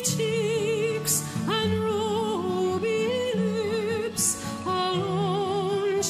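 Background music: a wavering melody with strong vibrato, sung or played, over sustained low notes, with a splashy accent about a second in and another around the four-second mark.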